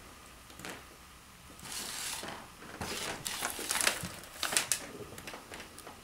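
Chinchillas scuffling over a treat: rustling and a run of quick scrabbling clicks and crinkles, busiest just past the middle.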